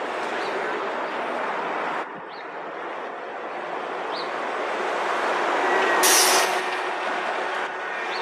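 City street traffic noise from a heavy vehicle, growing louder, with a short sharp air-brake hiss about six seconds in.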